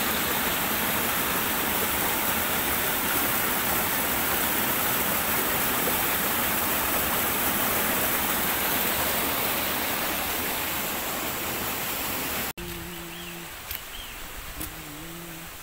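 Mountain stream rushing and splashing down a rocky cascade in a steady rush of water. It cuts off abruptly about three-quarters of the way through, giving way to much quieter surroundings with a faint low hum that comes and goes.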